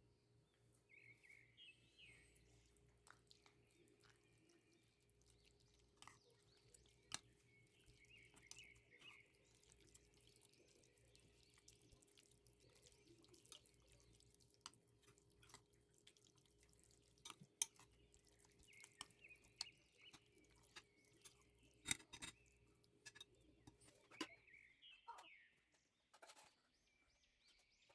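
Near silence with faint scattered clicks and ticks, a few louder single clicks among them, and a few faint short chirps.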